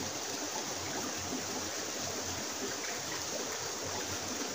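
River water flowing, a steady rushing with no pauses or changes.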